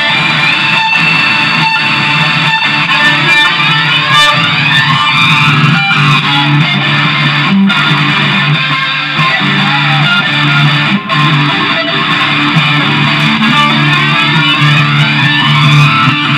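Instrumental passage of a progressive rock song: electric guitar over bass guitar, with no singing.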